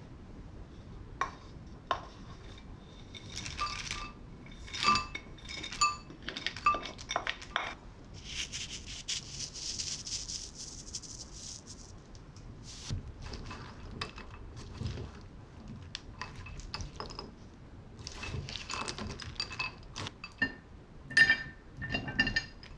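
Utensils clinking and tapping against dishes as sautéed zucchini is mixed and salted; many short strikes that ring briefly. A steady hiss lasts about four seconds midway, and the loudest clinks come near the end.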